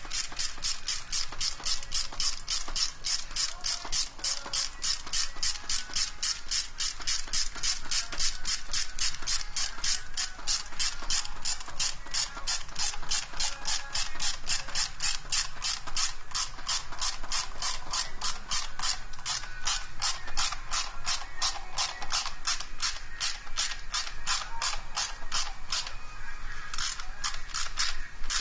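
Hand ratchet clicking steadily, about three clicks a second, while a fastener is being turned, with a brief pause near the end.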